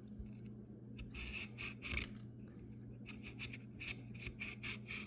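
Short, rapid scraping cuts as the spiny edges are trimmed off an aloe vera leaf, a dozen or so strokes in quick succession, over a steady low hum.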